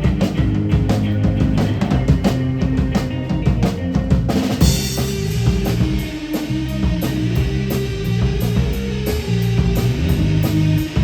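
Rock band playing, with the drum kit keeping a steady beat under bass and guitar; the sound brightens about four seconds in.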